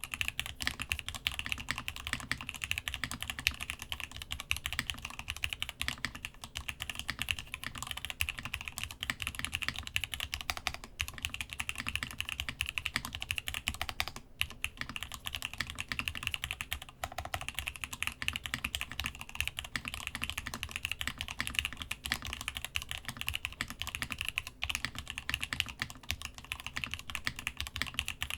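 Steady fast typing on a Masjewerke Muramasa mechanical keyboard fitted with lubed, spring-swapped Gat X switches and DCD Gondor keycaps. It makes a dense, continuous stream of key strokes with a few brief pauses.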